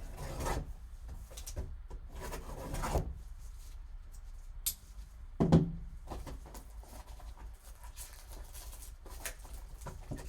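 A trading-card box and its packaging being handled and opened: scattered rubbing and scraping of cardboard, with a louder knock about five and a half seconds in.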